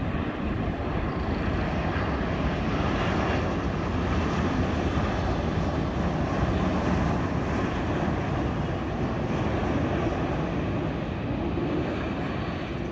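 Boeing 787-9 Dreamliner's jet engines on landing approach: a steady rushing noise that grows a little louder in the middle as the airliner passes and eases off near the end.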